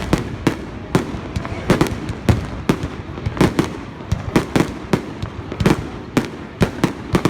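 Fireworks display: a rapid, irregular series of sharp bangs from fireworks bursting, about two to three a second, some falling close together in pairs.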